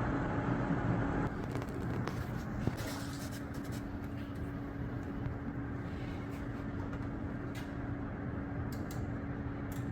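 Steady background hum with a low steady tone that comes in about three seconds in, and a few faint clicks.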